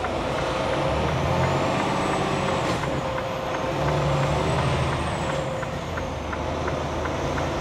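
Heavy semi-truck's diesel engine heard from inside the cab while driving at low speed, getting louder about a second in as the truck pulls on. Scattered light clicks and a faint high whine sit over it.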